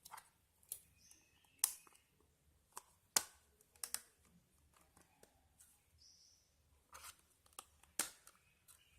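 Scattered plastic clicks and taps from handling a Lenovo A6000 smartphone while working out how to open its case, with the sharpest clicks at about a second and a half, around three to four seconds, and near eight seconds.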